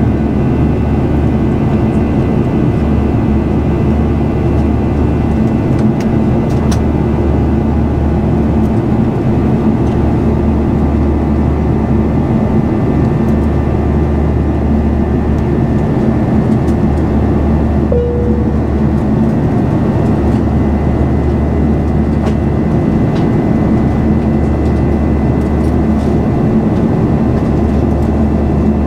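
Steady jet engine and airflow noise of an Airbus A340-300 with four CFM56 engines, heard inside the passenger cabin: an even rush with a deep hum and a few faint steady whines. A short faint tone sounds about two-thirds of the way through.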